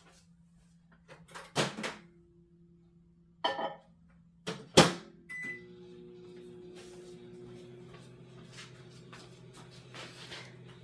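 Microwave oven being started: its door opens with a clunk, something clatters inside, the door shuts with a loud bang, a short keypad beep sounds, and then the oven starts running with a steady hum from about halfway through.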